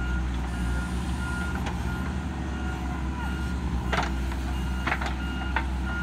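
Diesel engine of a JCB 3DX backhoe loader running steadily, over a reversing alarm that beeps repeatedly. From about four seconds in there are several sharp clanks.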